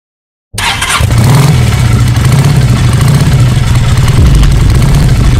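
An engine starting abruptly and then running loud and steady, with a brief dip in pitch about four seconds in.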